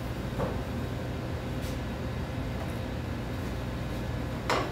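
Steady low hum of commercial kitchen ventilation over a light hiss, with a couple of faint knocks and a short scrape near the end.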